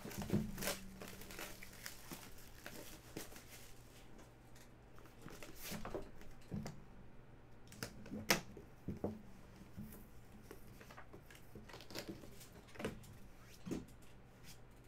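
Hands handling a cardboard trading-card box and its insert: scattered rustling, scraping and light knocks of cardboard, and a clear plastic card holder being lifted out.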